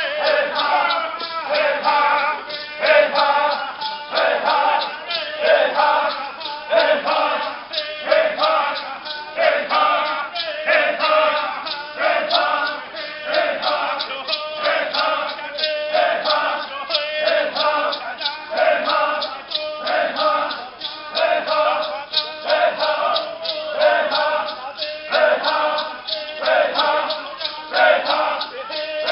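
Fulni-ô men chanting together in unison during their circle dance, their song set against a steady beat of sharp strikes.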